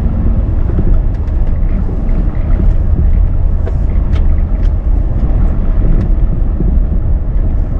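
A vehicle driving along a road, a steady low engine and road rumble with scattered light ticks.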